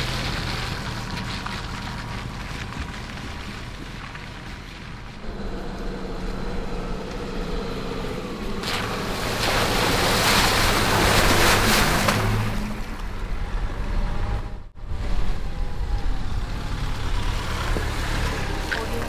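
Four-wheel-drive ute's engine running low and steady, with a rushing wash of water and mud in the middle as it drives through a puddle. The sound drops out for an instant about three-quarters of the way through.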